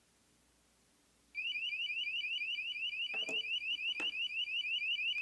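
METAK wireless door/window sensor alarm going off, triggered while armed: a loud siren of fast repeating rising chirps, about seven a second, starting about a second and a half in.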